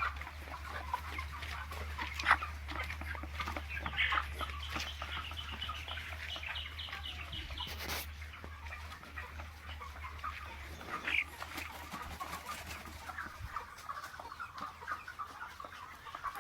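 A shed full of broiler chickens clucking and chirping all at once, over a steady low hum that fades out near the end.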